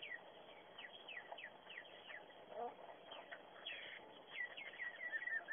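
A bird chirping: a string of short, high, falling chirps that come in a quick run near the end, with a brief lower call about two and a half seconds in.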